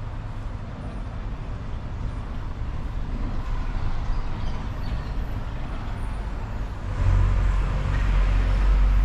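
Steady city street traffic noise, with a louder low rumble coming in about seven seconds in as a heavier vehicle goes by.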